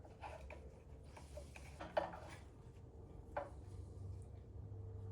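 Metal hand tools and bolts clinking and knocking against the engine case while the oil filter cover bolts are undone, with a sharper knock about two seconds in and another near three and a half. A low steady hum comes in near the end.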